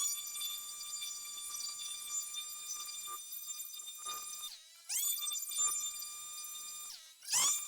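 Leaf blower spinning up to a steady high whine, running about four and a half seconds, winding down, then spinning back up for about two seconds and briefly once more near the end as the trigger is released and pressed again.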